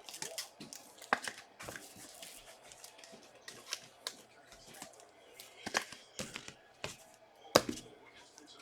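Trading cards and pack wrappers being handled: crinkling and tearing with scattered sharp clicks, the loudest about seven and a half seconds in.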